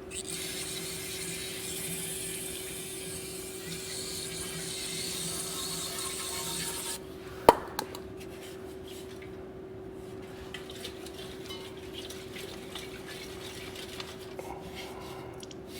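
A spray hissing steadily into an old fuel tank to rinse it out, cutting off abruptly after about seven seconds. A sharp knock follows, then light clicks of the tank being handled, over a faint steady hum.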